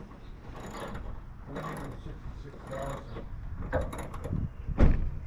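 Intermittent mechanical clicking and clattering from hand tools and parts being worked on the truck, with a heavier knock near the end.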